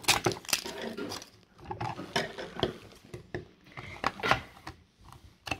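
Hard plastic toy packaging being handled: irregular clicks, knocks and crinkling of a plastic wrapper as a small wrapped item is worked out of a plastic capsule.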